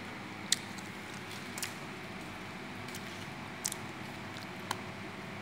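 A toddler biting into and chewing a whole green guava: about four short, faint crunches over steady background noise.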